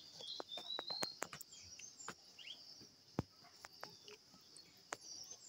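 Faint garden ambience: birds chirping over a steady high insect drone, with a few sharp clicks scattered through.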